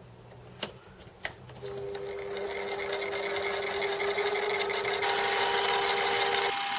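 Metal lathe boring out a hole: two sharp clicks, then the machine starts and runs with a steady whine that grows louder. About five seconds in, a higher whine and a hiss join it.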